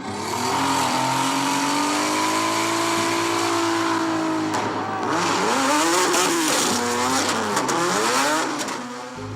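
Car tyres squealing on the street as a car is driven hard, with its engine revving. The squeal's pitch swoops up and down over and over in the second half, then fades near the end.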